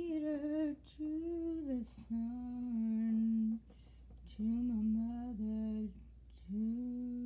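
A single unaccompanied voice humming a slow melody in long held notes, phrase after phrase, with short breaths between phrases.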